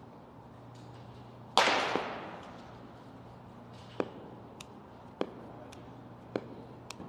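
Indoor batting-cage sounds: one loud sharp hit with a hissing tail that fades over about a second, about one and a half seconds in, then several short sharp knocks spaced about a second apart, over a steady low hum.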